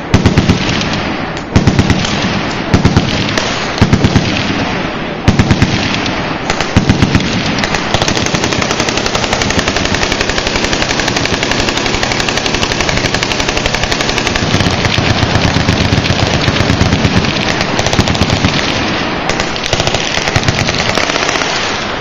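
Loud machine gun fire: several short bursts of automatic fire over the first seven seconds, then a long unbroken stretch of rapid fire for about fourteen seconds that stops just before the end.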